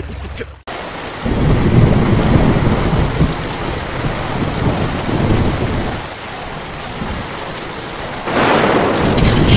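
Heavy rain with rolling thunder, starting suddenly about a second in. The thunder swells and fades, and a louder crash comes in near the end.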